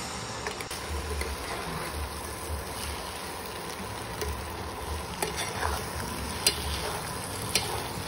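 Wooden spatula stirring and tossing rice noodles in a frying pan, the food sizzling gently, with a few sharp clicks of the spatula against the pan in the second half.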